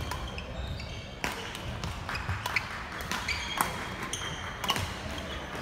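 Badminton rally: sharp racket hits on the shuttlecock about once a second, with sneakers squeaking on the court floor.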